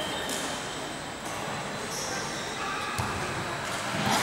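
Echoing indoor volleyball game: background chatter of players and onlookers in a large gym, a few short high sneaker squeaks on the wooden floor, and two sharp smacks of the volleyball being hit, about three and four seconds in.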